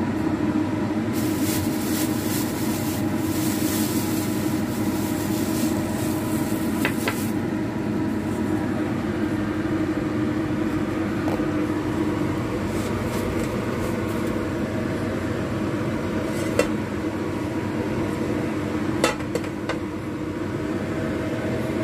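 Kitchen extractor fan running steadily with a constant hum over a frying pan heating on the stove. A higher hiss comes in for several seconds near the start, and there are a few light clicks later.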